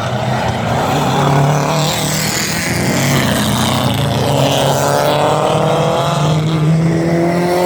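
Rallycross cars' engines running hard at race speed, with the pitch of one engine climbing steadily through the second half as it accelerates.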